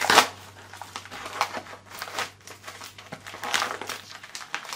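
A yellow padded mailer crinkling and rustling as it is pulled open and handled by hand, in irregular bursts, the loudest right at the start.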